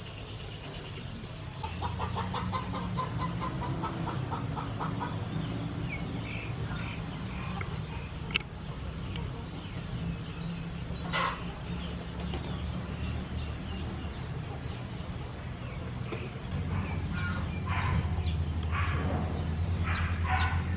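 Chickens clucking on and off, with a fast run of clucks a couple of seconds in and more near the end, over a low steady drone that gets louder late on.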